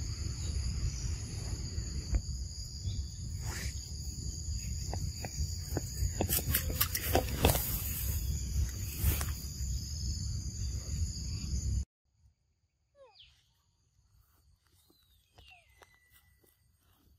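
Steady high-pitched insect chorus over a low rumble, with leaves rustling and snapping as the camera pushes through undergrowth. It cuts off abruptly about twelve seconds in, leaving faint, high, sliding animal calls.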